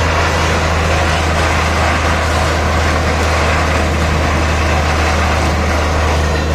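Truck-mounted borewell drilling rig running steadily, its engine's low drone under a continuous rush of water and slurry gushing out of the bore at the well head: the bore has struck water.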